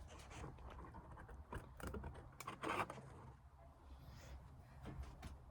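Faint scraping and a few light clicks of metal parts being handled during work on the bumper irons and their bolt hardware, over a low steady hum.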